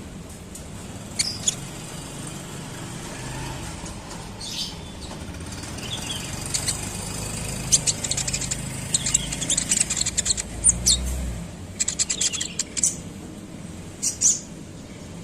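Olive-backed sunbird (kolibri ninja) chirping and giving rapid, high-pitched twittering trills in a series of short bursts, thickest in the middle. A low rumble underneath cuts off about eleven seconds in.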